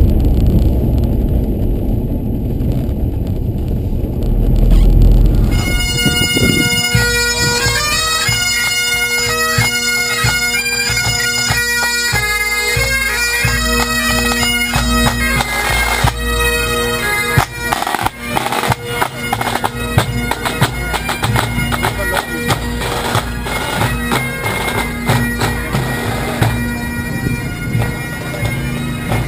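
A car engine running, heard from inside the car, for about the first six seconds; then a pipe band playing: bagpipes with steady drones under the chanter melody, with snare and bass drums.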